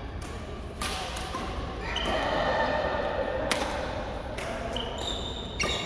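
Badminton rackets hitting a shuttlecock: about three sharp smacks a couple of seconds apart, with short high squeaks of court shoes on the floor mat.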